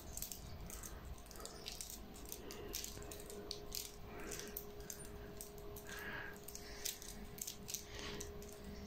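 Faint crinkling and clicking of a paper piping cone as it is squeezed to drizzle melted chocolate, over a steady low hum.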